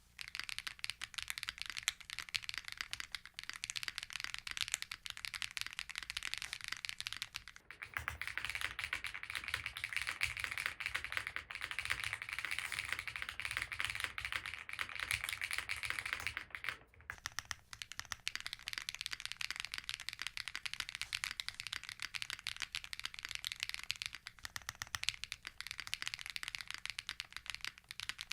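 Steady typing on a Krush65 custom mechanical keyboard with HMX Poros switches and GMK Fuji keycaps, in a polycarbonate case with an O-ring-mounted aluminium plate and foam. It makes fast, continuous keystroke clacks. From about eight to seventeen seconds in, the same typing is picked up through a phone microphone, and the tone changes.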